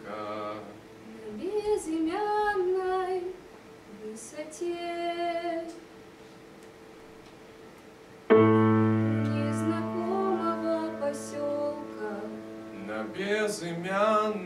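A solo voice singing a slow song with no accompaniment. About eight seconds in, a piano chord strikes suddenly and rings on, fading slowly, and the voice comes back in over it near the end.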